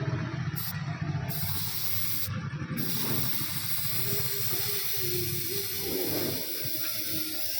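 Air hissing steadily out of a motorcycle tyre as it is deflated through the valve.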